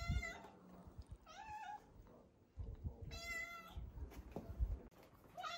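Domestic cat meowing four times, each call short with a steady or slightly rising pitch. Low thuds come in between the calls.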